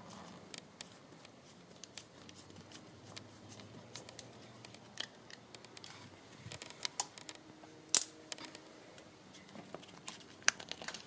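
Scattered sharp clicks and snaps of the e-scooter's plastic throttle housing being pulled apart by hand to reach its Hall effect sensor, with one loud snap about eight seconds in.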